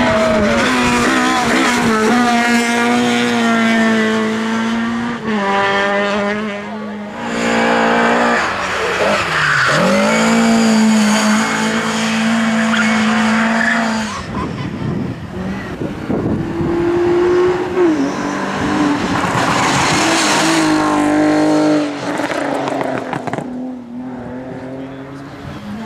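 Race car engine at high revs, its pitch climbing and stepping with gear changes and dropping away between runs. Its pitch dips sharply and picks up again about ten seconds in.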